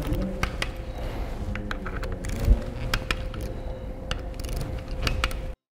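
Small ratcheting torque wrench clicking in short, irregular runs as the bolts on a robot arm's side cover are tightened, over a steady background hum. The sound cuts off abruptly near the end.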